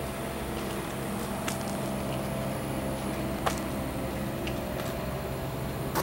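Steady low mechanical hum with a faint steady whine, and a few soft ticks.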